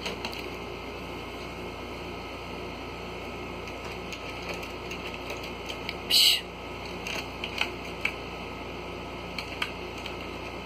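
Two-month-old Border Collie puppy chewing and pawing at a frame edge on a tiled floor: scattered light clicks and taps of teeth and claws, with one short, louder hiss about six seconds in. A steady low hum runs underneath.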